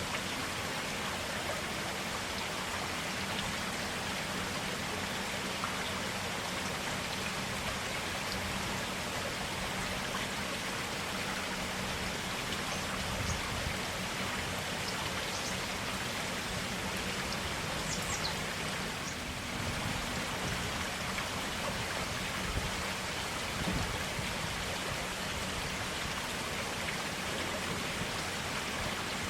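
Clear forest stream water running steadily in an even, continuous rush, with a few faint high ticks about halfway through.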